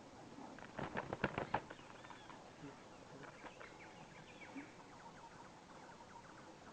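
Small birds chirping faintly with short repeated calls, with a quick flurry of clicks or knocks about a second in.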